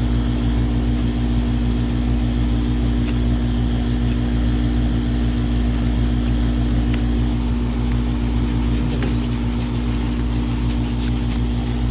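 Older R-22 central air conditioner's outdoor condensing unit running: a steady compressor hum with the condenser fan's rush, unchanging throughout.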